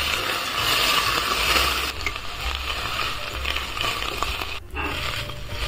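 Chopped onions, celery and carrots sizzling in an enamelled cast-iron pot while a metal spoon stirs and scrapes through them. The sizzle drops out briefly about four and a half seconds in.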